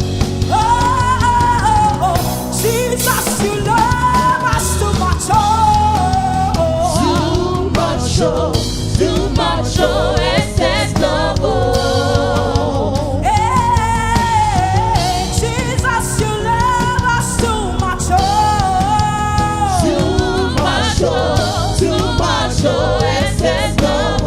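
Gospel worship song: a lead voice sings a flowing melody with backing singers over band accompaniment with bass and drums.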